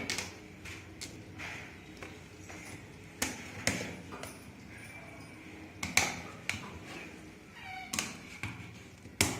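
Sharp plastic clicks and taps from the Xolo Era 2X smartphone's case as it is pressed and snapped shut by hand, with separate clicks spread through the stretch and a louder one near the end.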